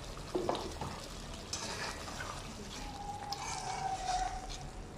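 Slotted metal spatula stirring yogurt into a thick chicken curry in a pan, with scrapes and a couple of sharp clicks against the pan over a soft frying sizzle.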